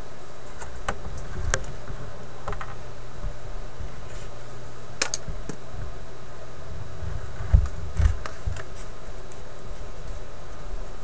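Hands working on the paper lining of a wooden record-player cabinet: scattered light clicks and taps, with two dull knocks close together about two-thirds of the way through, over a steady background hum.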